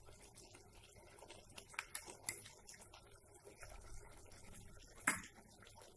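A few faint clicks and taps of a spoon against a glass bowl and a metal pot as curd is spooned into the chicken, with one louder tap about five seconds in.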